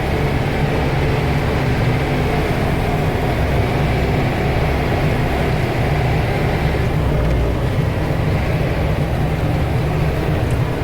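Heavy farm machinery engines running steadily, a tractor and a combine harvester side by side while grain is unloaded on the go.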